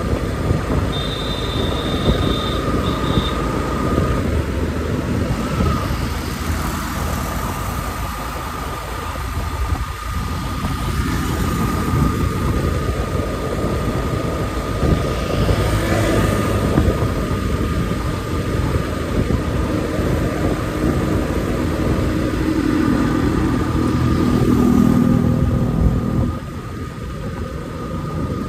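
Yamaha motorcycle cruising steadily at about 45 km/h: engine running under a dense wash of wind and road noise, with a thin steady whine over it.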